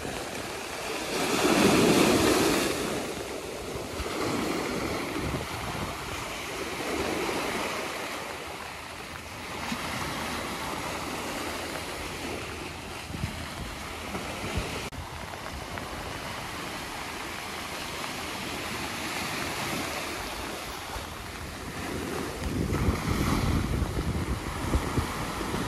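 Sea waves breaking on a sandy beach strewn with rocks and washing up and back, in swells, the loudest about two seconds in. Wind gusts on the microphone add a low rumble near the end.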